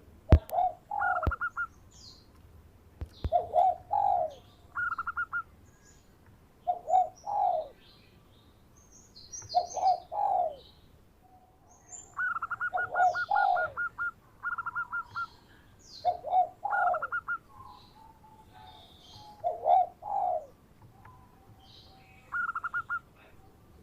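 Zebra dove (perkutut) singing: phrases of low coos with a short rapid trill, repeated about every three seconds. Fainter high chirps from other small birds run beneath, and a few sharp clicks sound in the first three seconds.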